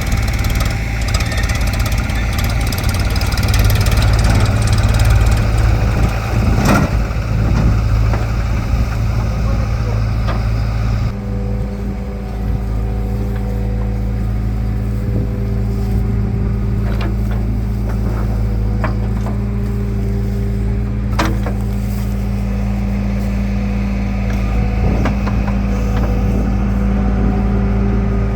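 Heavy diesel machinery running steadily, the engine note changing about eleven seconds in, with a few sharp knocks, the loudest about seven and twenty-one seconds in.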